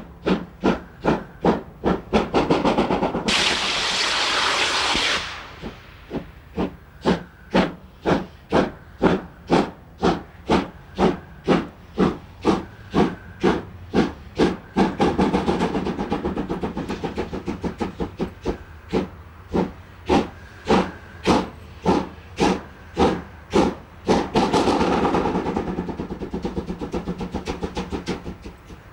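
Class 41 steam locomotive working hard with a passenger train: regular chimney exhaust beats, about two to three a second. A sharp burst of steam hiss starts about three seconds in and stops abruptly two seconds later, which fits the safety valves lifting as boiler pressure rises after the regulator is eased against slipping. Softer steam hissing swells up twice more under the beats.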